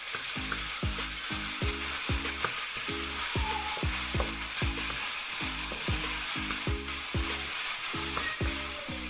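Spice paste of ground chilies, shallots and garlic sizzling as it is stir-fried with a wooden spatula in a wok. Under it runs background music, its low notes repeating about twice a second.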